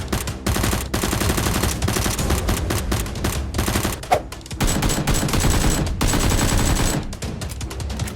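Rapid automatic gunfire in several long bursts with short breaks between them, the gun sound effects of a staged shootout.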